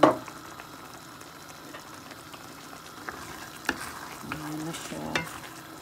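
Pan of liver in onion gravy sizzling on the stove as it is stirred, with a sharp knock of the spoon against the pan at the start and a few lighter clinks later.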